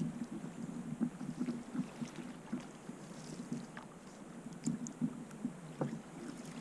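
Water lapping and splashing against the hull of a moving canoe, in irregular low slaps with a few faint ticks.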